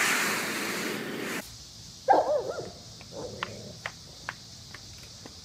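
A rushing noise that cuts off suddenly about a second and a half in, then a dog barking several times in quick succession, followed a second later by one softer bark.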